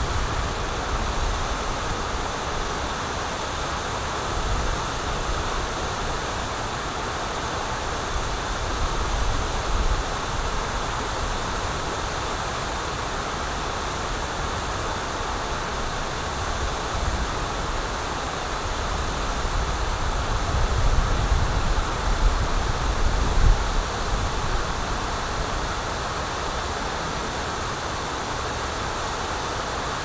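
Water pouring over Stroudwater Falls and running through the rocky river below: a steady rushing. A few low rumbles rise under it, the strongest about twenty seconds in.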